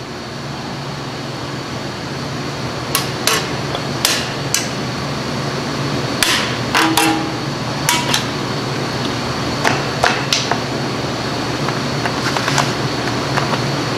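Irregular sharp metal clicks and taps, about a dozen, as steel brake return springs and a brake spring tool are worked onto the anchor post of a Jeep Cherokee's rear drum brake shoes. They sound over a steady shop hum.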